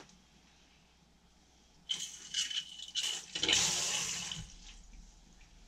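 Water released from a washing machine tap on plastic water pipes, draining into a bowl, to empty the pipework. It starts about two seconds in with a hiss and a thin whistle, swells into a louder rush for about a second, then tails off.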